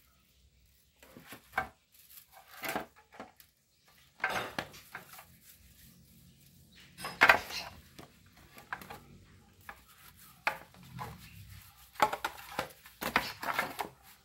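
Hands rubbing salt into a large whole fish in an aluminium baking tray: irregular scrapes and rustles, with the metal tray knocking now and then. The loudest come about seven seconds in and again near the end.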